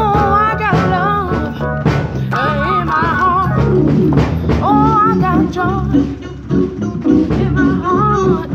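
Gospel organ playing with held chords and a steady bass, with a voice singing wordless runs over it.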